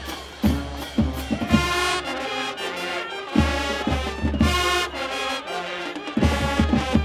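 High school marching band playing in the stands: the brass section, sousaphones, trumpets and trombones, sounds two long held chords, with drum hits before and after them.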